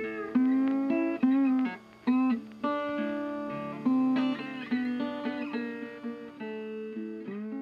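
Background music: a plucked acoustic guitar melody, single notes with sliding pitch bends.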